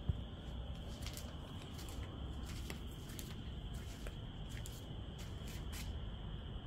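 Crickets chirring steadily in a high thin tone, over a low rumble, with scattered faint clicks and one short thump right at the start.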